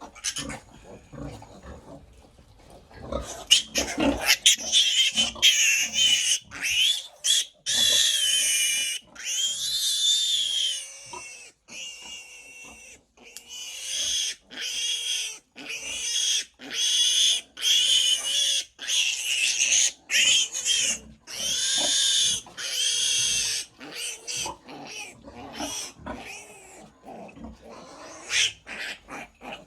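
Piglet squealing in a rapid run of shrill distress squeals, some short and some drawn out, while it is restrained for an iron injection. The squeals start a few seconds in and thin out near the end.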